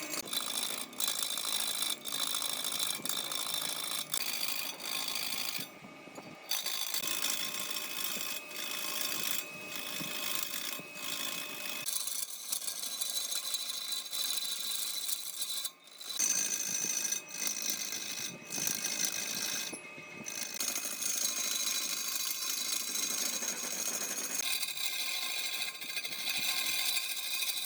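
Woodworking power machines running with high, steady whines, the sound changing abruptly several times as one machine or cut gives way to another.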